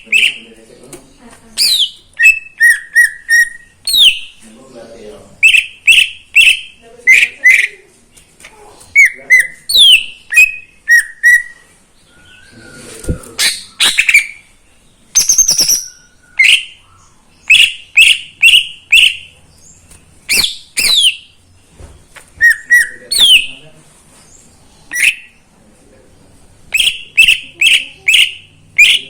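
Cucak ijo (green leafbird) singing: loud, clear whistled notes, often in quick runs of three or four, mixed with short notes that sweep downward in pitch, with brief pauses between phrases.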